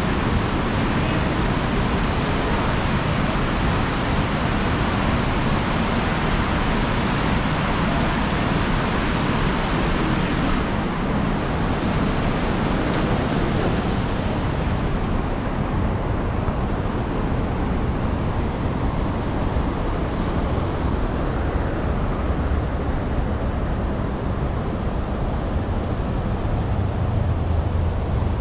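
Steady rushing noise of river water pouring over concrete weirs, mixed with low wind rumble on the microphone; the hiss thins about eleven seconds in.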